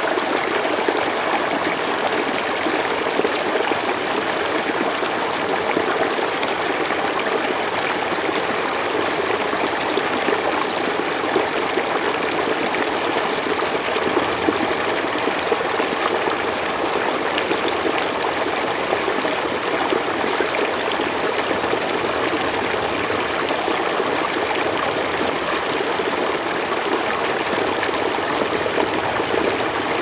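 Running water, a steady, even rush and trickle that does not change.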